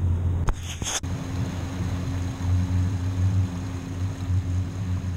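Outboard motor of a Yamaha 190 FSH center-console boat idling: a low, steady hum with a slight pulse. Before it, about a second in, there are a couple of short knocks of handling noise.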